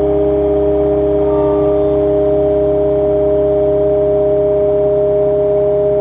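Cat 259 skid steer's engine running at a constant speed: a steady droning whine over a low rumble.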